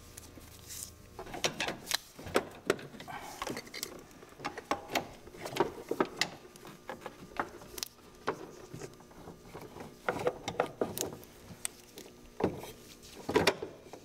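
Irregular clicks, taps and knocks as a metal fuel rail with its fuel injectors still seated is lifted out of an engine bay and handled, the rail and injectors knocking against engine parts and each other.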